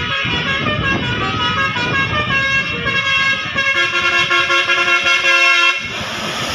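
A bus's basuri telolet horn playing a tune: a run of stepped horn notes, the last few held longer, then cut off suddenly near the end.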